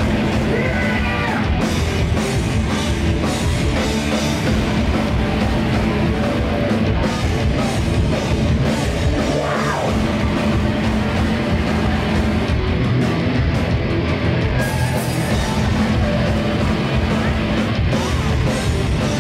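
Hardcore punk band playing live and loud: distorted electric guitars, bass and a pounding drum kit in one dense, unbroken wall of sound.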